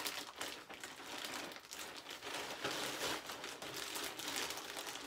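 Plastic mailing bags crinkling and rustling in irregular bursts as they are handled and pulled open, with a smaller bag drawn out of the outer one.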